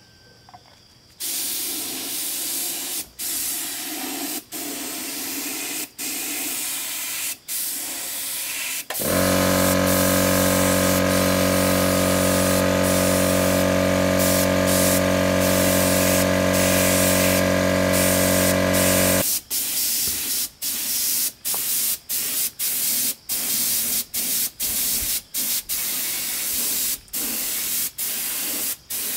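Air spray gun hissing as it sprays paint through a stencil, in longer runs at first and then in many short bursts, about one or two a second. For about ten seconds in the middle a small air compressor's motor runs alongside it with a steady hum, refilling the tank.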